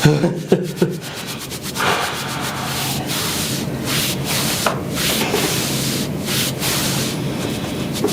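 A steady rubbing, scraping friction sound after a few short sounds in the first second.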